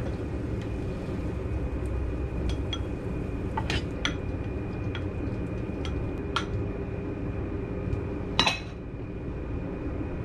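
Kitchen utensils clinking and scraping against a frying pan, a small bowl and a plate as fried ketchup rice is dished up. The clinks are light and scattered, the loudest near the end, over a steady low hum.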